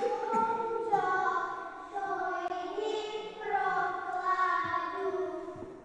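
Children's voices singing a song, in held notes that run together into phrases.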